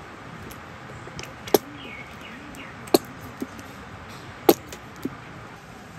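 Three sharp knocks, about a second and a half apart, with two fainter taps between them, over a steady low background hiss.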